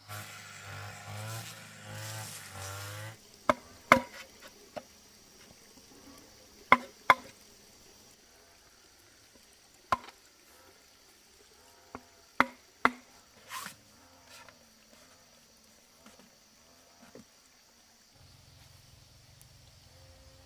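A hand tool striking hard material: sharp knocks, some single and some in quick pairs, a few seconds apart. They follow a few seconds of rushing noise at the start.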